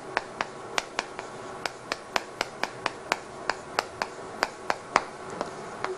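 Chalk tapping and scraping on a chalkboard during handwriting: a quick, uneven run of sharp taps, about three or four a second, as each stroke strikes the board.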